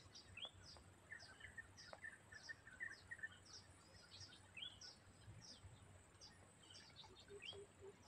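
Faint bird calls: a short, high chirp repeated about twice a second, with other softer, lower twittering notes among them.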